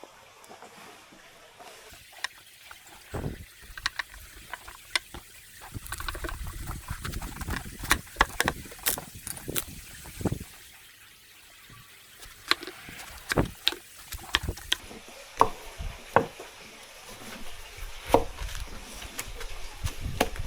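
Kitchen prep with water: scattered sharp clicks and knocks over water pouring and trickling.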